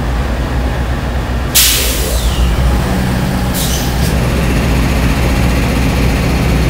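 Amtrak GE P42DC diesel locomotive idling at close range, its 16-cylinder diesel engine giving a steady low rumble. Two sharp hisses of compressed air cut in, a short one about a second and a half in and a longer one at about three and a half seconds.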